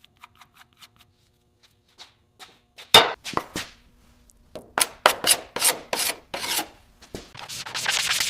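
Abrasive hand rubbing on a car's body panel, like sanding. A few faint ticks come first. About three seconds in there is one loud stroke, then a run of quick strokes at about three a second, and near the end a denser spell of continuous rubbing.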